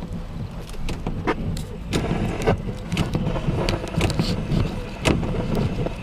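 Storm wind buffeting the microphone in a low rumble, with rain and sharp ticks of drops striking close by. The rain noise grows denser about two seconds in.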